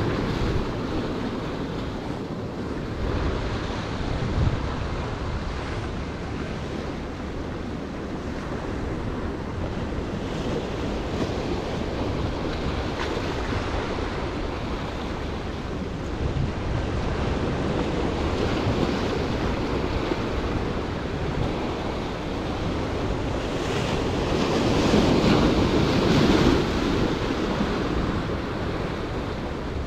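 Ocean surf washing and breaking over the rocks of a jetty, with wind buffeting the microphone. The wash swells into a louder break about three-quarters of the way through.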